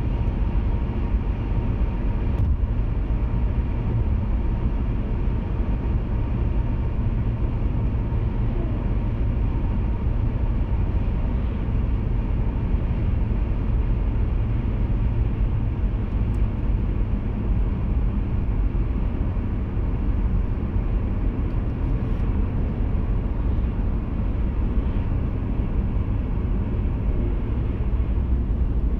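Car driving at a steady speed, heard from inside the cabin: an even, deep noise of tyres, wind and engine that holds constant throughout.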